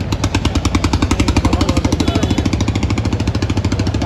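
A boat's engine chugging at a fast, even beat of about a dozen pulses a second over a low hum. It grows louder just after the start and then holds steady.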